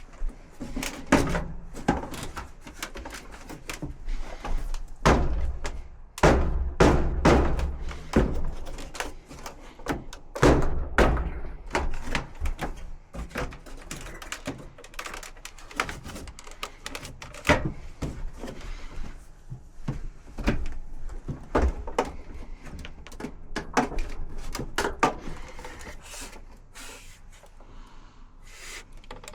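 Irregular knocks, thunks and clatter of hands and tools working on a dryer's metal cabinet and parts, with no steady rhythm.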